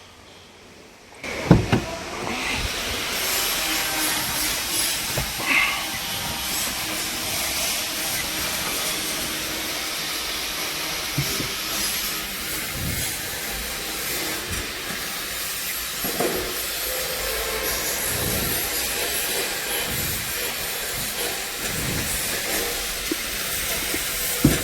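Mahindra Marazzo's diesel engine starting about a second in and then running steadily under the bonnet, with a loud hiss over the engine noise.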